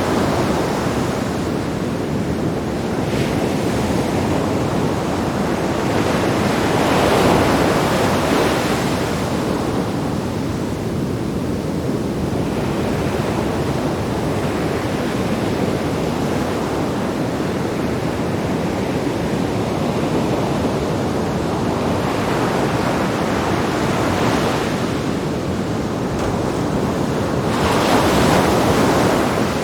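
Sea waves breaking on rocks: continuous surf with two louder breakers, one about seven seconds in and another near the end, and some wind on the microphone.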